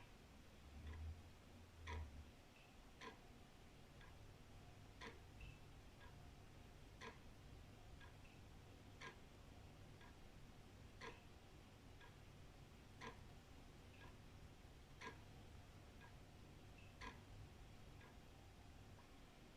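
Old wall clock ticking, one tick about every second, alternating louder and softer beats like a tick-tock.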